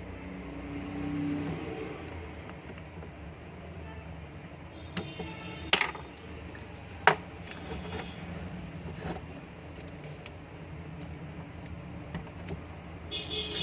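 Small exhaust fan motor humming steadily on mains power, with two sharp clicks about six and seven seconds in and a few fainter ticks from handling the motor and its wiring.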